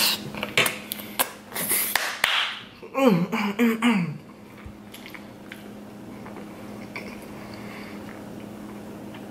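Close-up chewing of a mouthful of creamy fettuccine Alfredo: wet, sticky mouth clicks and squelches, loudest in the first two seconds. About three seconds in comes a short hummed vocal sound that bends up and down in pitch, then softer chewing over a steady low hum.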